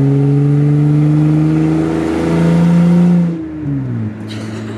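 Car engine revved up and held at raised speed for about three seconds, then dropping back to idle.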